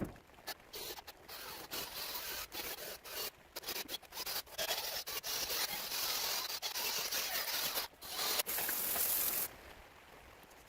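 Brush scrubbing the Ford 4500 backhoe's motor block, sped up, giving a choppy scratching with many short breaks. It is loudest just before it stops, a little before the end.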